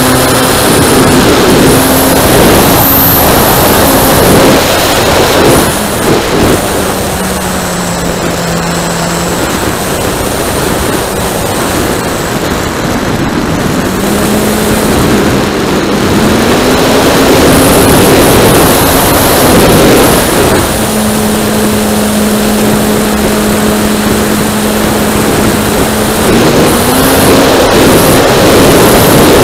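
A radio-control Piper Cub's motor and propeller in flight, heard from a camera on the plane under heavy wind rush. The propeller's tone wanders down and up in pitch with the throttle, dipping early on and rising again in the middle and near the end.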